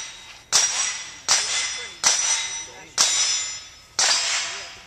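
Steel target plates being hit by shots in quick succession, five times about a second apart; each hit is a sharp clang that rings out and fades over most of a second.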